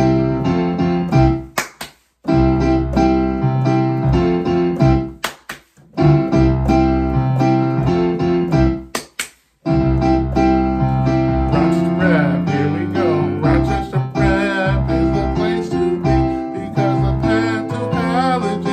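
Electric piano playing sustained chords as the intro to a song, stopping dead for a moment three times in the first half. After about twelve seconds a wavering higher melody line comes in over the chords.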